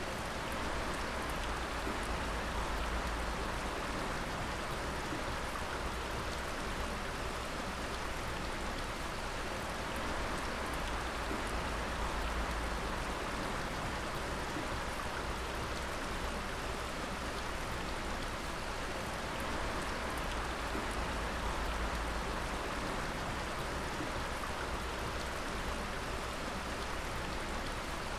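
Water dripping steadily: a dense, even patter of drops over a constant watery hiss, with a low rumble underneath.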